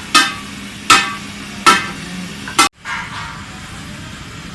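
A hammer striking metal four times, about one blow every three-quarters of a second, each blow ringing briefly. The sound cuts off abruptly after the last blow, and a steady background noise follows.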